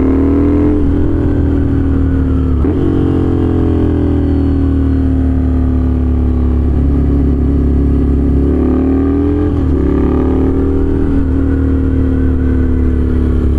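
Ducati Scrambler's V-twin running through an unbaffled aftermarket full exhaust while riding, extremely loud. The engine pitch falls and rises several times as the throttle is rolled off and on.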